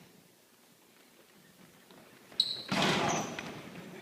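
Game sounds in a gym: quiet for about two seconds, then a short high squeak and a sharp knock, followed by a loud half-second burst of noise with the ring of a large hall.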